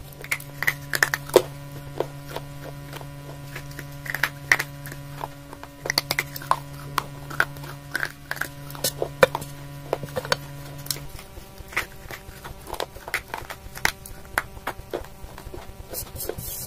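Irregular sharp cracks and crunches of baked clay pieces being snapped and crunched close to a clip-on microphone. A steady low hum runs underneath and stops about 11 seconds in.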